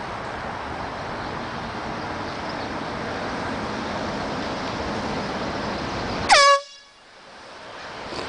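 A single short blast from a canned air horn about six seconds in, its pitch dropping briefly at the start and then holding steady. It sounds over a steady background rush.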